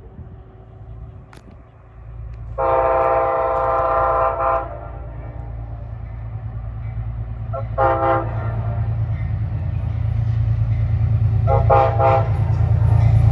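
Amtrak P32AC-DM locomotive's multi-note horn sounds one long blast, a short toot a few seconds later, and two quick toots near the end. Underneath, the train's low rumble grows steadily louder as it approaches.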